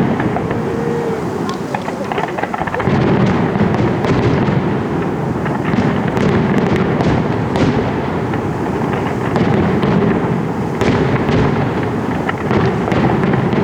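Fireworks display going off: a continuous rumble of shell bursts with many sharp crackles and bangs, growing louder about three seconds in.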